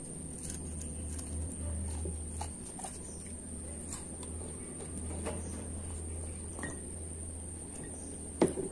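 People chewing fried chicken, with scattered light clicks of chopsticks against ceramic bowls and one sharper, louder clink near the end, over a steady low hum.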